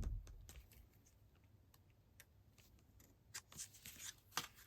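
Faint scratching and small clicks of a craft blade cutting a slit through a cardstock box lid, with a light knock at the start.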